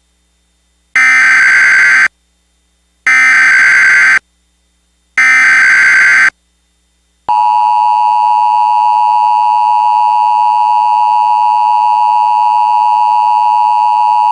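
Emergency Alert System tones for a tornado warning. First come three one-second bursts of SAME header data, about a second apart, which encode the alert. About seven seconds in, the steady two-tone EAS attention signal begins and holds.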